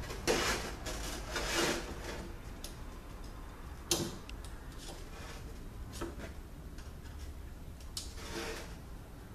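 Light metal scraping and clicking as a pick tool and fingers work at the snap ring of a steel transmission clutch drum. There are two short scrapes in the first two seconds, a sharp click about four seconds in, then a few softer clicks and another short scrape near the end.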